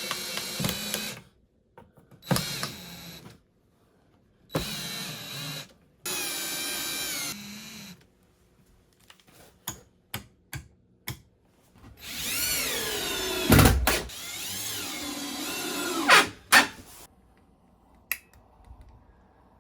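Power drill run in several short bursts, with a steady motor whine in each. Sharp clicks and knocks come between the runs. Past the middle a longer run follows, its whine rising and falling in pitch, with one heavy thump.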